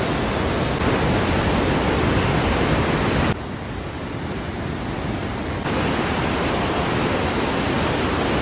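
Swollen, flooding river rushing in a steady, loud roar of water. About three seconds in it suddenly turns quieter for a couple of seconds, then returns just as abruptly to full strength.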